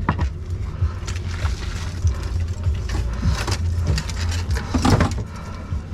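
Boat engine idling with a steady low rumble, under irregular knocks and clatter on the boat.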